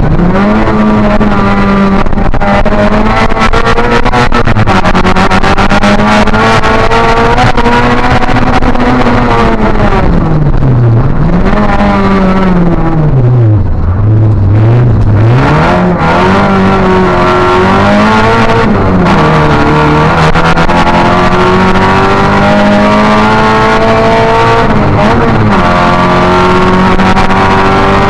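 Opel Astra rally car's engine at racing speed, heard from inside the cabin: loud, the revs rising and falling with the gear changes, dropping low several times around the middle, then holding high near the end.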